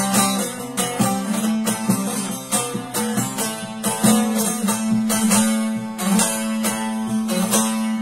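Bağlama (long-necked saz) played solo with quick plectrum strokes, a melody picked over a steady low drone string, with no singing.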